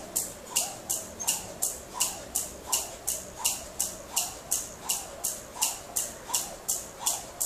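Jump rope doing double unders, each jump bringing a sharp whip and slap of the rope against the floor, in a steady even rhythm of nearly three a second.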